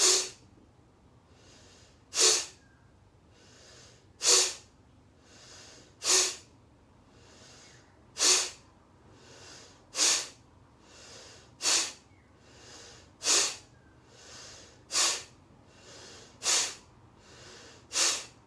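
A woman doing rhythmic forceful breathing: about eleven sharp, loud exhalations, one every couple of seconds and slightly quickening, each followed by a quieter in-breath. This is a yoga release breath: breathe in, then push the air out fast.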